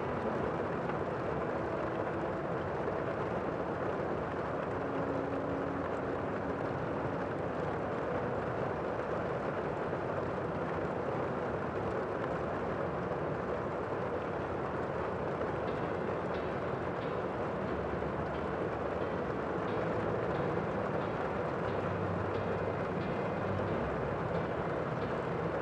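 Steady, even rushing noise from a nature soundscape, with no distinct events; a faint low hum grows a little louder near the end.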